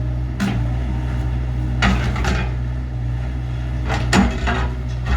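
Excavator's diesel engine running steadily while it tears apart a mobile home, with three crunching bangs of wood and metal debris being broken and dropped, at about half a second, two seconds and four seconds in.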